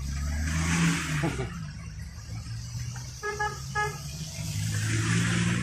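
Motor vehicles passing on a wet road, engines running and tyres hissing on the wet surface, with two short vehicle-horn toots a little after three seconds in.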